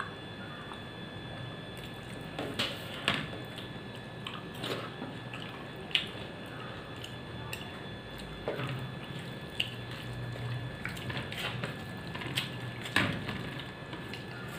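Eating by hand from a steel plate of rice, dal and fried small fish: wet chewing and lip smacks with short sharp clicks every second or two, over a faint steady hum.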